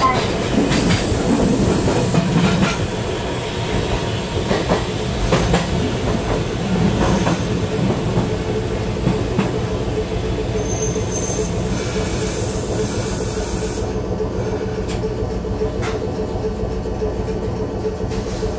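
Fukui Railway 770-series car running, heard inside the passenger car: a steady rumble of wheels on rail under a constant hum, with scattered clicks and knocks.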